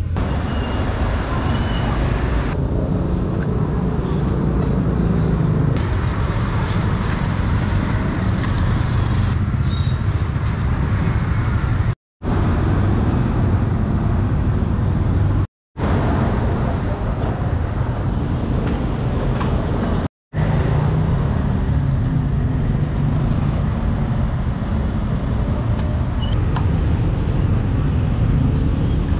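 Steady roadside street noise, mostly a low traffic rumble, broken by three brief gaps of silence near the middle.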